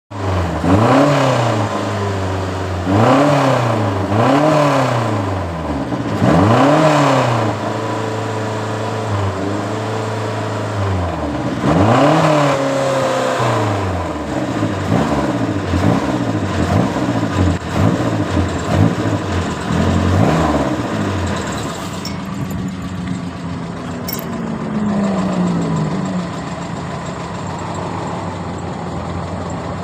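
A 1.3-litre car engine revved in repeated blips, each rising and falling back over about a second, between spells of steady idle. In the second half the blips grow smaller and quicker over the idle.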